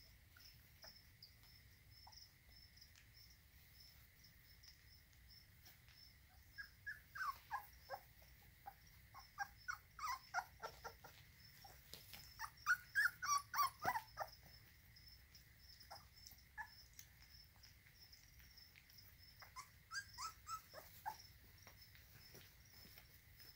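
Young American Bully puppies crying in short, high-pitched, falling cries, in bursts a few seconds in, through the middle (loudest) and again near the end. Crickets chirp steadily in the background.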